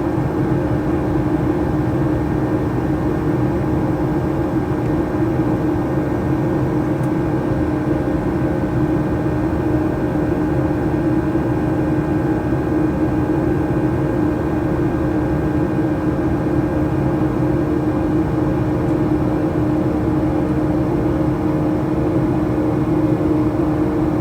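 Steady cabin drone of a Boeing 737-800 with its CFM56 turbofans, heard from inside the cabin at the front row: a constant rush of engine and airflow noise with a strong low hum and a few fainter steady tones above it.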